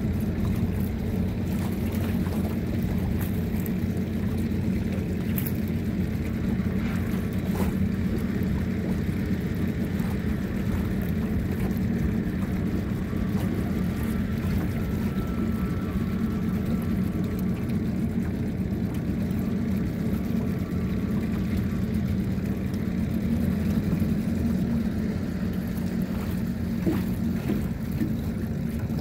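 A boat's engine drones steadily at a low pitch, with light water and wind noise over it.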